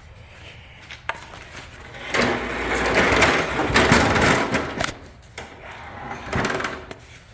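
Handling noise: a few seconds of rubbing and scraping with several sharp knocks as things are moved about and the camera is set up.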